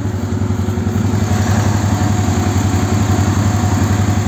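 Quad bike (ATV) engine idling steadily, with an even low pulsing beat.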